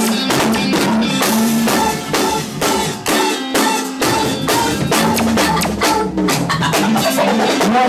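Go-go band playing live: a drum kit keeps a busy beat under synth keyboards playing held, pitched notes.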